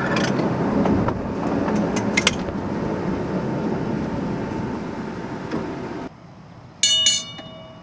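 PCC streetcar rolling along jointed track: a steady running rumble with a few sharp clicks over the rail joints, cut off abruptly about six seconds in. Near the end come two quick, loud ringing strikes with a faint ringing tail.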